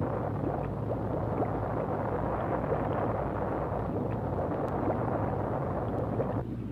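A steady, low rushing noise with a deep hum beneath it, cutting off abruptly near the end.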